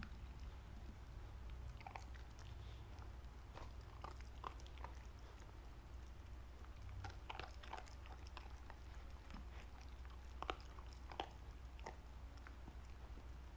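Corgi chewing crispy fried sweet potato: quiet, irregular crunches that come in small clusters, over a faint low hum.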